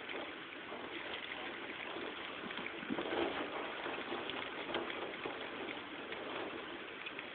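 Heavy rain falling steadily, a constant hiss with many small ticks of drops.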